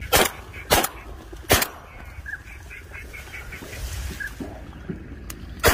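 Birds calling at a waterside, a steady string of short calls with a few longer ones mixed in, broken by loud thumps: three in the first second and a half and one near the end.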